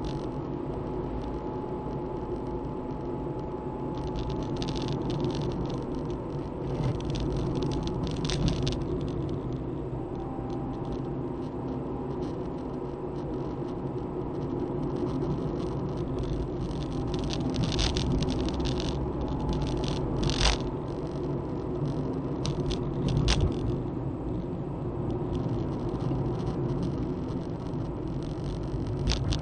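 Steady engine and tyre noise of a car driving on a wet road, heard from inside the cabin, with a few short sharp rattles or knocks.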